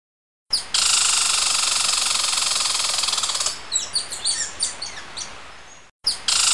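A steady, high, fast-pulsing insect buzz starts about half a second in, with a run of quick descending bird chirps in the middle. It fades, cuts out briefly near the end, and starts again with a chirp.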